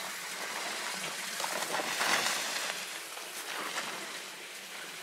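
Footsteps crunching and scuffing on packed snow, an irregular crackle that swells about two seconds in.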